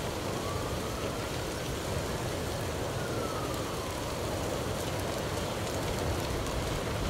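Bushfire burning through trees: a steady crackling hiss, with a few sharp pops in the second half. A faint siren wails once, rising for about two seconds and falling again.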